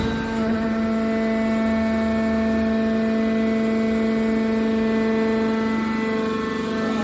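Horizontal hydraulic metal baler's hydraulic power unit running with a steady, pitched hum.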